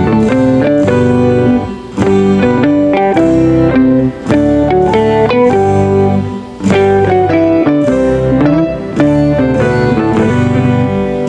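Background instrumental music led by a plucked guitar, with a bass line under shifting melody notes.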